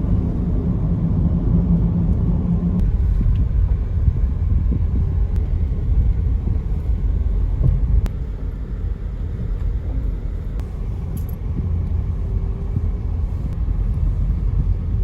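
Steady low rumble of a vehicle driving, with a faint engine hum through the first few seconds.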